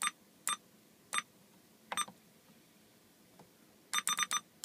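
Uniden Bearcat 880 CB radio giving short electronic beeps as its knob is worked to change the backlight colour: four single beeps spaced about half a second apart, then a quick run of four near the end.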